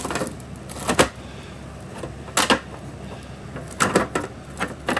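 Handling noises from unboxing: a few sharp knocks and taps as packaged items are moved and set down, about a second in, near the middle and a cluster near the end.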